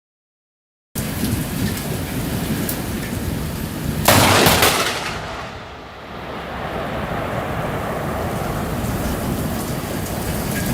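Thunderstorm: heavy rain pouring steadily, with a sharp, loud crack of close thunder about four seconds in that lasts about a second before the rain noise settles back.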